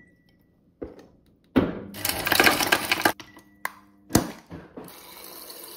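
Ice cubes clatter out of a refrigerator door's ice dispenser into a drinking glass for about a second and a half, followed by a few separate clinks and one sharp knock. Near the end, water starts pouring steadily from the dispenser into the glass.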